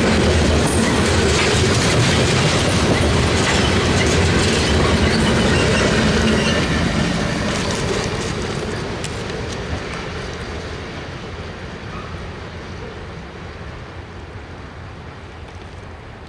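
Freight train of covered hopper cars rolling past, steel wheels running over the rails. About seven seconds in the end of the train goes by, and the rolling noise fades steadily as the train moves away.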